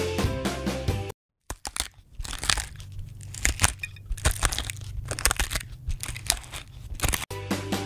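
Electric masala grinder grinding dry roasted whole spices, coriander seeds among them: irregular crunching and crackling over a steady low hum.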